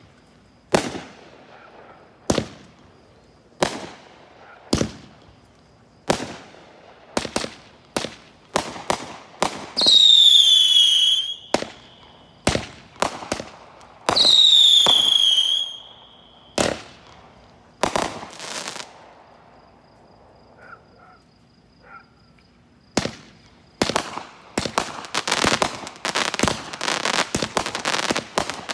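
A fused chain of consumer firework cakes going off, with a sharp bang about every second or so. Twice a shot gives a loud whistle, about a second and a half long, that drops in pitch and then levels off. After a short lull, rapid bangs and crackling come thick and fast near the end.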